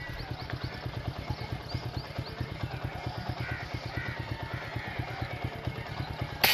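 A steady, rapid low throb of an engine running throughout, with a few faint high bird chirps early on; right at the end comes a single sharp crack of an air rifle shot.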